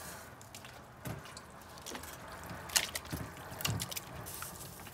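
Raw beef tripe tipped from a plastic bucket into a pot of water, with irregular plops and splashes, the sharpest about three seconds in.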